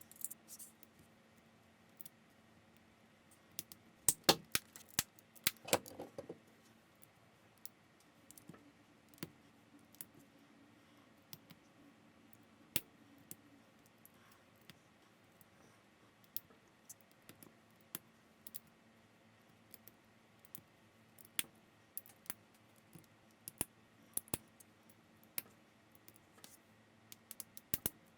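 Plastic building bricks clicking and snapping together as they are handled and pressed into place, in scattered single clicks with a busier run of clicks about four to six seconds in.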